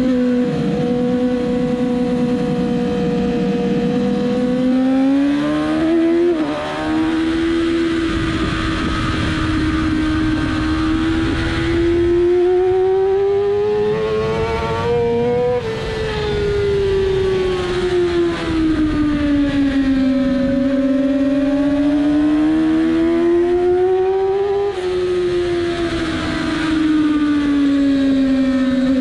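Onboard sound of a 2007 Yamaha R6 race bike's inline-four engine at high revs, its pitch climbing under acceleration and falling as the rider eases off, with sudden steps in pitch at gear changes about six and a half seconds in and again near twenty-five seconds. A steady rushing noise runs underneath.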